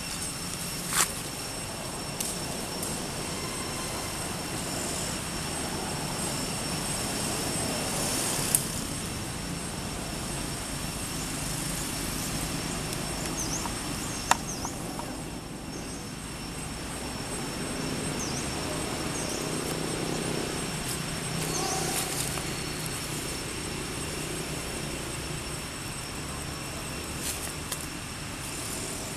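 Steady outdoor background noise with a low rumble and a steady high thin whine, broken by a few sharp clicks and some brief faint chirps.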